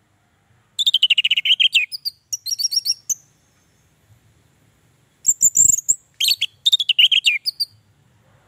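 Orange-headed thrush singing: two bursts of rapid, varied, high notes a couple of seconds apart, each lasting about two seconds, with a low bump partway through.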